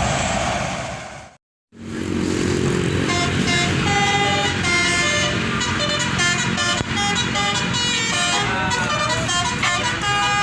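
Road noise of passing traffic for about a second, cut off abruptly. After a short gap, a bus's telolet (basuri) horn plays a quick melody of stepped notes that runs on to the end.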